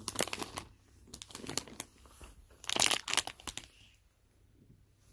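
Plastic bag of Dubble Bubble gum balls crinkling as it is handled, in three spells of crackling, the loudest about three seconds in.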